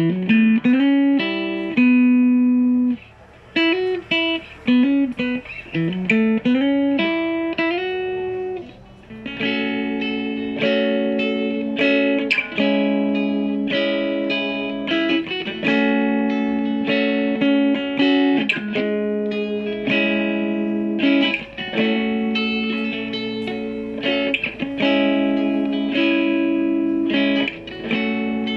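Krait Telecaster electric guitar played through a Boston Engineering M15 amplifier: single-note lines with bends and slides for the first eight or nine seconds, then repeated chords.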